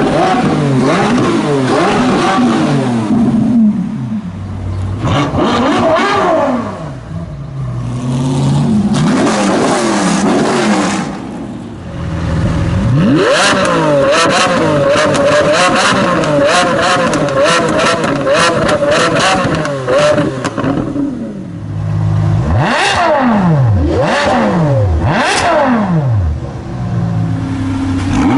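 Supercar engines revving hard, over and over, their pitch rising and falling. In the middle comes a long stretch held at high revs with rapid crackles, and near the end three sharp rev blips in quick succession.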